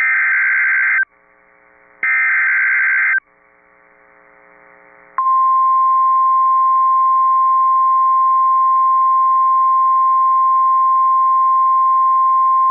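Emergency Alert System SAME header data bursts on a NOAA Weather Radio broadcast: two buzzy digital screeches, each about a second long and about two seconds apart. About five seconds in, the steady 1050 Hz weather radio warning alarm tone starts and holds. Together they are the alert signal that announces a new warning message.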